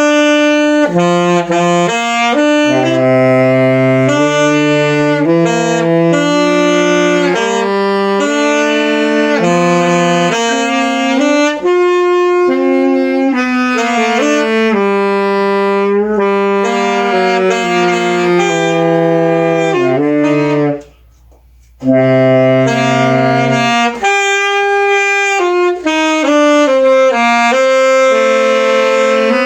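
Saxophone playing a slow melody of held notes during practice, with a short pause for breath about twenty seconds in before the tune resumes.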